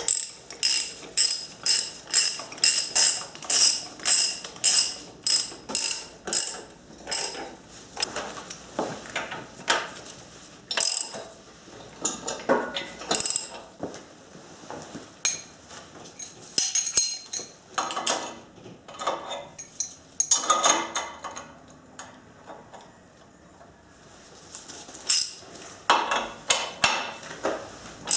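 Hand ratchet wrench clicking in runs of quick strokes, about two or three clicks a second, stopping and starting, as bolts are run in to fasten an engine block to an engine stand's mounting plate.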